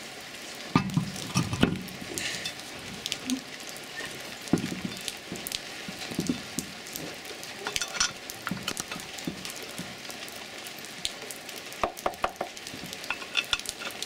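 Steady patter of rain with scattered short metal clicks and clinks as wheel bolts are threaded by hand into a steel wheel.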